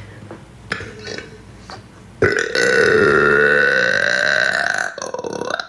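A woman's long burp, loud and held steady for about three seconds, starting about two seconds in and tailing off at the end.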